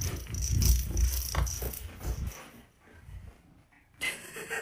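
Cat clawing a scratch pad right beside the phone: a rapid, rough rattling that lasts about two and a half seconds and then dies away.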